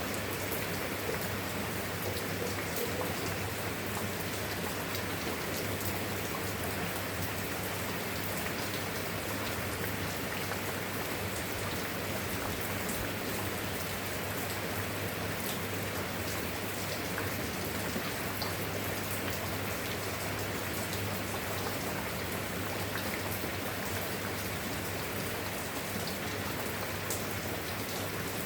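Steady rainfall: a dense, even hiss of rain on a surface with scattered individual drop ticks, over a faint low steady hum.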